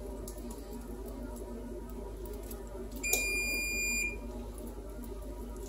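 Electric oven's preheat signal: one electronic beep, a steady high tone about a second long, sounding about three seconds in, marking that the oven has reached its set temperature of 500 degrees.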